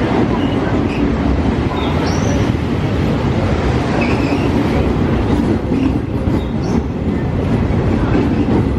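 Train passing on the rails: a steady, loud rumble of wheels and running gear, with a few brief high squeals.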